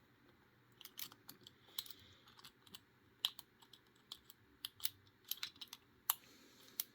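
Faint, irregular small clicks and ticks of a lock pick working the pin stack inside a Master Lock 410 lockout padlock, held under light tension from the bottom of the keyway.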